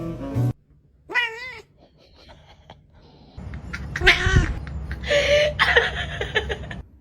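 A cat meowing: a short, wavering meow about a second in, then a louder, wavering yowl about four seconds in, followed by more calling that cuts off abruptly near the end.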